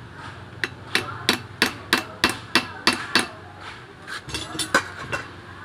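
A hammer striking a screwdriver held against the riveted clutch outer housing of a Honda TMX 155 engine, about nine sharp metal blows at roughly three a second, then a few lighter, ringing taps near the end. The blows are knocking out the housing rivets to get at the clutch rubber dampers.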